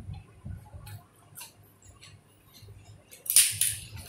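Papad (papadam) being broken by hand: a few faint clicks of fingers on the plate, then about three seconds in a short, loud crisp crackle as the papad snaps.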